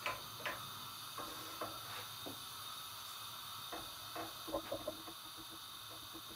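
Wooden spoon knocking and scraping lightly and irregularly against the inside of a cooking pot while stirring, with a quick run of taps about three-quarters of the way through, over a faint steady hiss.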